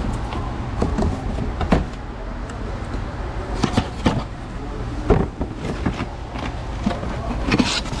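Folding pocket knife slitting packing tape on a cardboard box, with scattered clicks and scrapes of the knife and cardboard. Near the end the cardboard flaps are pulled open with a longer scrape. A steady low hum runs underneath.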